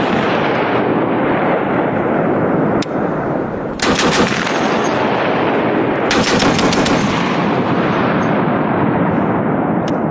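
.50-calibre gun firing: a single shot about 3 s in, a quick string of shots about a second later, a burst of about six rapid shots around the middle, and one more shot near the end. A long, loud rolling echo fills the gaps between the shots.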